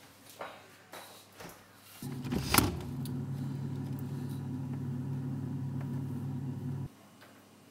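Refrigerator humming low and steady, starting suddenly about two seconds in with a sharp click and cutting off abruptly about five seconds later. A few light knocks come before it.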